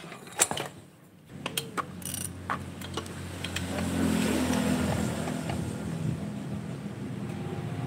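A motor vehicle engine running steadily, growing louder about four seconds in. A few sharp metallic clicks come in the first two seconds.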